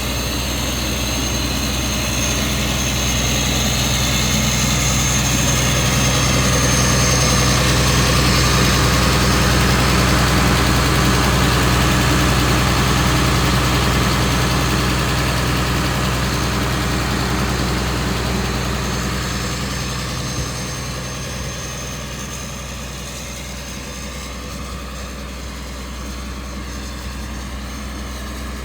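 Heavy diesel engine of a tracked forestry mulcher, a John Deere 6068T six-cylinder, running steadily at a constant speed. It grows louder through the first half and turns quieter about two thirds of the way in.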